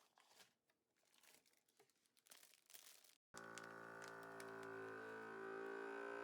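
Faint crinkling and rustling of plastic bags being handled, then a sudden cut to background music with held, sustained notes about halfway through.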